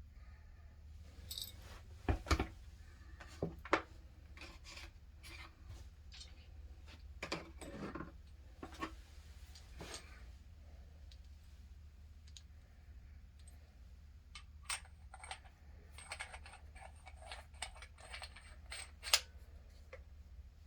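Scattered clicks, light clinks and rubbing from an HVAC copper pipe expander kit being unpacked and handled by hand, over a low steady hum.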